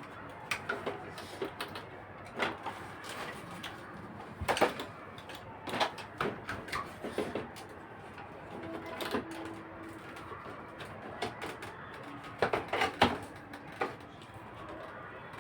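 Irregular knocks and clatters of objects being handled, loudest about four and a half seconds in and again in a cluster near thirteen seconds.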